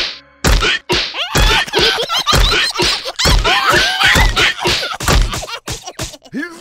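Slapstick cartoon brawl: a string of heavy thumps and whacks, about one a second, mixed with the characters' squealing, yelping wordless voices.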